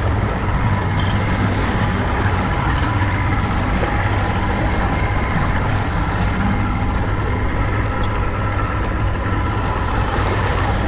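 Outboard motor running steadily at trolling speed, a constant hum with the rush of the churning wake and wind over it.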